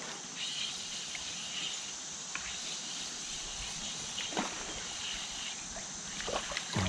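Insects buzzing steadily over outdoor river ambience; a higher buzzing comes in shortly after the start and stops about five and a half seconds in. A faint knock sounds about four seconds in.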